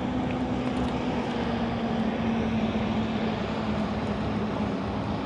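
A distant engine drones steadily over an even hiss, its low hum sinking slowly in pitch as it passes.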